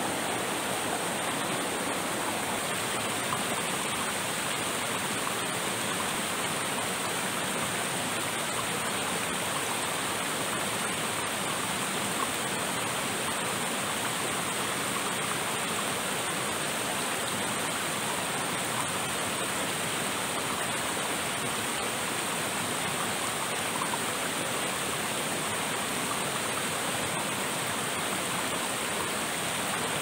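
River water rushing steadily, an unbroken, even wash of water noise, with a faint steady high-pitched whine above it.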